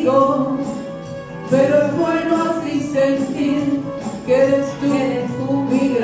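Music: a karaoke backing track of a slow Spanish-language ballad, with women singing into microphones.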